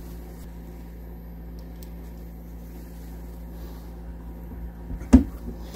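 Steady low hum with faint ticks of handling, and one sharp knock about five seconds in.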